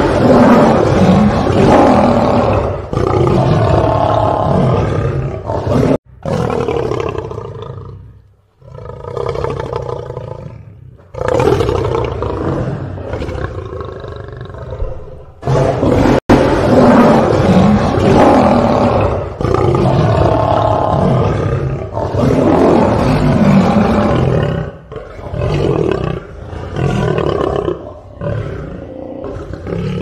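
Lion roaring and growling, loud, in a string of long roars separated by short breaks, with abrupt cuts about six and sixteen seconds in where one roar clip is spliced to the next.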